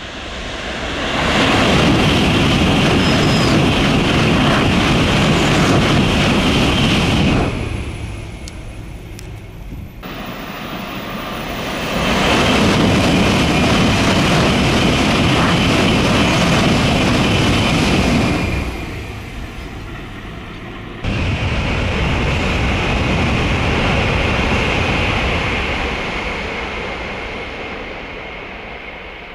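N700-series Shinkansen trains passing at high speed, three passes one after another. Each is a loud, steady rush with a high hiss. The first builds up over about a second and drops away after about seven seconds, the second cuts in suddenly, and the third cuts in suddenly and fades out near the end.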